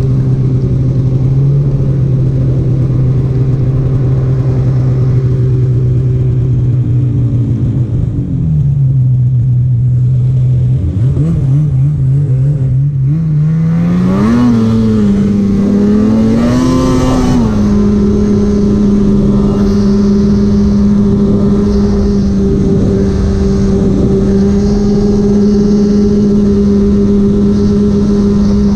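Polaris 850 Patriot two-stroke snowmobile engine running under way at a steady pitch. It eases off about a third of the way in, then picks up again in a couple of surges and settles at a higher steady pitch for the rest.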